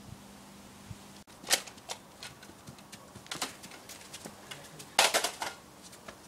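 Shoes scuffing and tapping on paving slabs as two boys grapple: a handful of short, sharp scuffs, with the loudest cluster about five seconds in.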